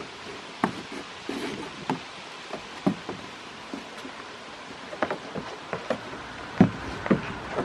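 Goats on a weathered wooden playhouse roof making irregular light knocks and taps, several over a few seconds, with the loudest knock near the end.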